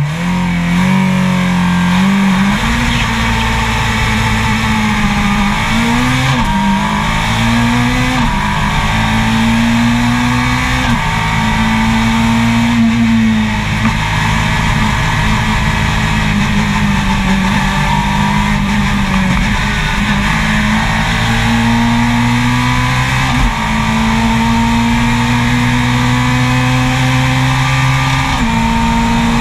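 Race car engine at full throttle pulling away from the start and up the course, heard on board. The pitch climbs and drops sharply at each upshift several times, then holds fairly steady through the faster stretches.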